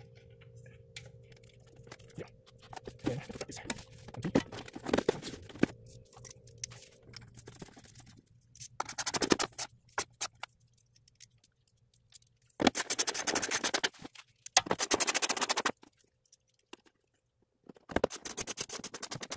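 Small bolts of a plastic wheel-well liner being run back in with a ratchet, in four bursts of rapid clicking, each about a second long, after softer scraping as the liner and drain hose are handled.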